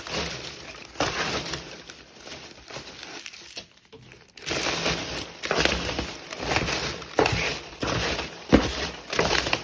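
Packaging being handled: crinkling and crumpling in uneven stretches, with a short lull about four seconds in.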